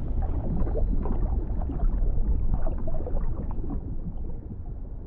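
Underwater ambience: a dull, steady low rumble with faint, irregular clicks and crackles through it.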